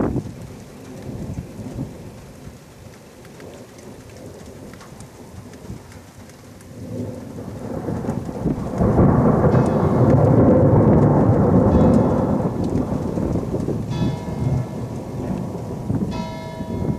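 Thunder rumbling over rain: the rumble builds, stays loud for a few seconds in the middle and then rolls away. Near the end, two ringing, bell-like tones sound over the rain.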